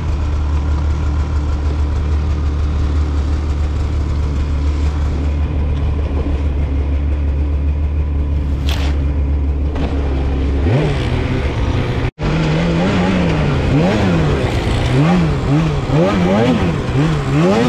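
Polaris Khaos Slash 9R snowmobile's two-stroke twin engine running steadily at low revs, then revved up and down over and over as the throttle is worked, from about two-thirds in, with a very short break in the sound just as the revving starts.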